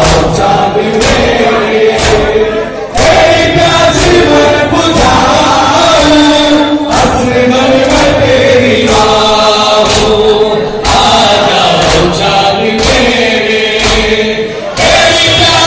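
A noha sung by male reciters through a microphone and loudspeakers, with a crowd of men chanting along. Sharp, even beats about once a second keep time, the rhythm of matam, the mourners striking their chests.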